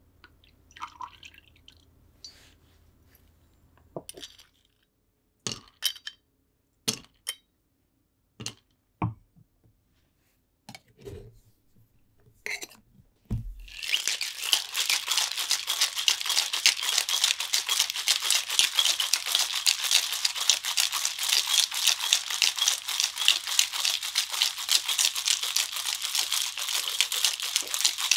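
Metal cobbler shaker being shaken hard with ice: a dense, fast rattle of ice against the steel that starts about halfway through and keeps going. Before it come scattered separate clinks and knocks of bar tools and the shaker being handled.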